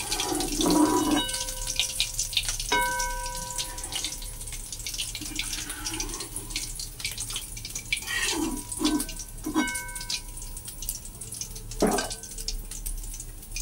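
Hot oil crackling and spattering in an iron kadai as leftover onion bits fry, a fast patter of fine pops. A slotted metal spoon clinks against the pan a few times, ringing briefly, most clearly about three seconds in.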